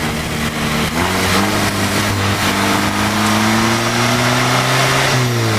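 KTM X-Bow's turbocharged four-cylinder engine pulling hard on track: its pitch jumps up about a second in, climbs steadily, then drops near the end. Wind rushes through the open cockpit under the engine note.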